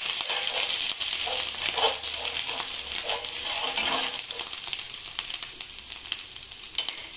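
Ginger-garlic paste sizzling and crackling in hot oil in a frying pan, scraped and stirred with a spatula during the first four seconds, then left to fry on its own.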